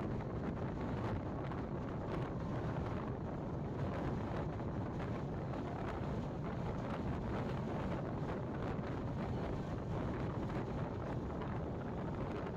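Wind buffeting the microphone: a steady, low rushing rumble with no distinct events.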